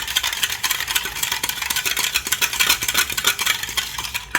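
A utensil stirring briskly through a liquid mix of milk, oil and sugar in a bowl, clicking rapidly against the bowl as the sugar is dissolved; the stirring stops abruptly at the end.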